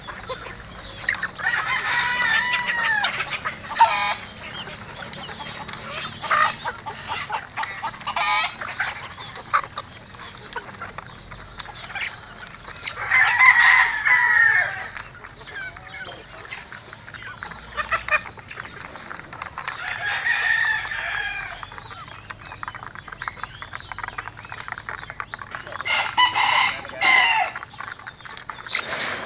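A flock of gamefowl chickens calling while they feed: several drawn-out calls, the loudest about halfway through, among frequent short clicks.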